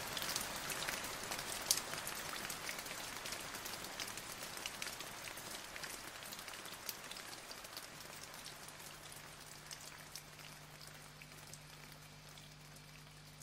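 Rain falling, a steady hiss with individual drops clicking close by, fading out gradually. A faint low steady hum comes in past halfway.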